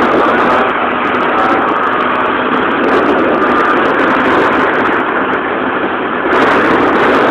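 Small motorbike engine running hard, a loud steady din that grows louder about six seconds in.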